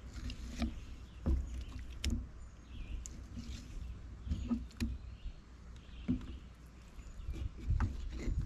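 Fillet knife working through a catfish on a wooden plank board: irregular small knocks, taps and scrapes of the knife and fish against the wood, over a low rumble.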